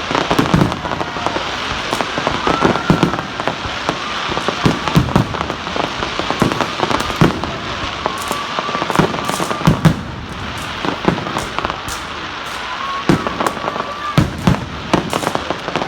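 Fireworks display: a rapid, continuous string of bangs and crackling pops, with a few faint drawn-out whistles among them.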